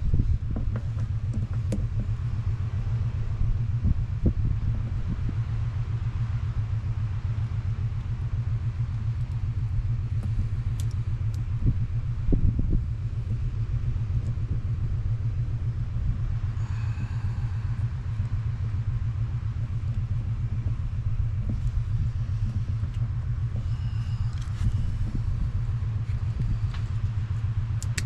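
An engine running steadily at idle, a constant low rumble, with a few small clicks and knocks over it.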